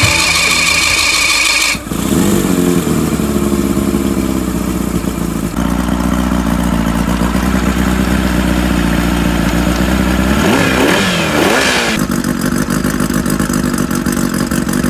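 A 40 hp Mariner outboard motor running on a garden-hose flusher out of the water, cut together from several takes. It runs steadily and is revved up and back down near the end.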